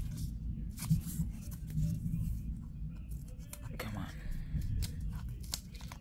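Hands working a tablet's retail box open: scattered clicks and scrapes of cardboard, with tearing of its seal.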